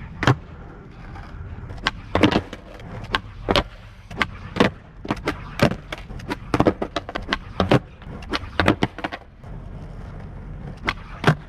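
Skateboard on asphalt: a long series of sharp cracks from the tail popping and the board and wheels slapping down as flip tricks are tried over and over, with a quieter stretch and then two more hits near the end.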